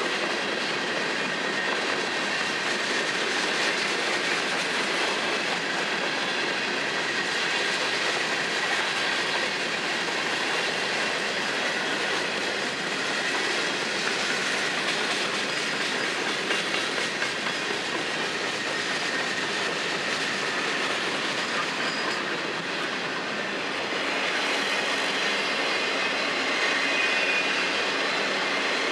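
Freight cars of a long FEC freight train rolling past: a steady, continuous noise of steel wheels on rail, with a faint high wheel squeal running through it.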